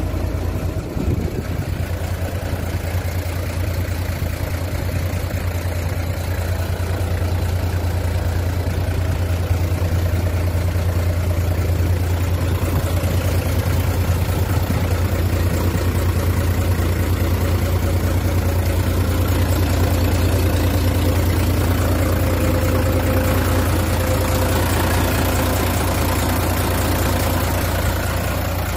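Mitsubishi Fuso Fighter truck's 6D17 straight-six diesel engine idling steadily.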